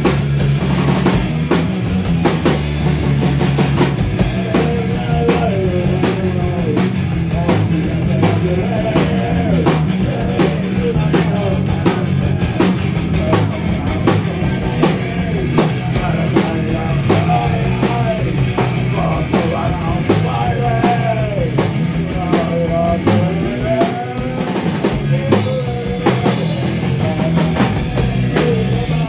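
Live rock band playing: hollow-body electric guitar through Marshall amplifiers over a drum kit keeping a steady, driving beat, with a wavering lead melody on top.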